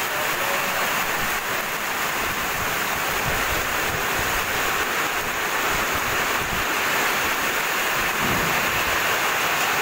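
A whirlwind's strong wind driving heavy rain: a steady, loud rushing roar, with gusts buffeting the phone's microphone in uneven low rumbles.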